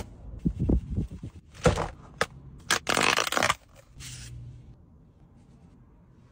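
Close-up hand handling of takeaway packaging. A few light knocks come first, then short bursts of paper rustling and tearing as wooden chopsticks are pulled from their paper sleeve. It goes quiet after about three and a half seconds.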